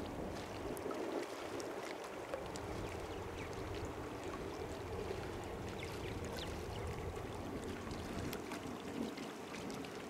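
Water lapping and trickling close by: a steady wash of small waves with scattered light ticks and drips.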